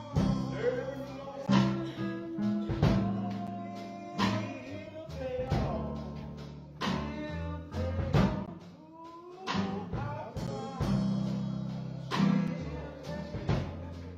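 Music from a small band: a singer over keyboard, bass and a drum kit.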